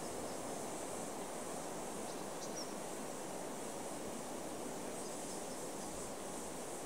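Outdoor bush ambience: a steady, even rush of breeze, with a faint high insect hiss and a couple of tiny bird chirps about two and a half seconds in.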